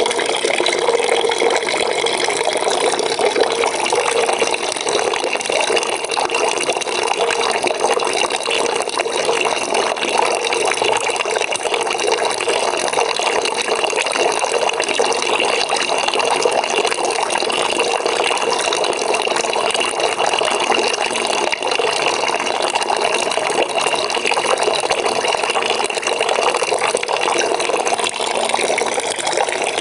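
Water pouring into a bucket as it fills, a steady rushing splash that does not change.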